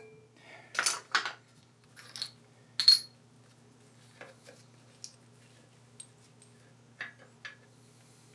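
Small steel parts clinking and tapping against the cast-iron milling-machine head as they are worked loose from its bore by hand. A few sharp metallic clinks come in the first three seconds, the last one ringing briefly, followed by lighter scattered ticks.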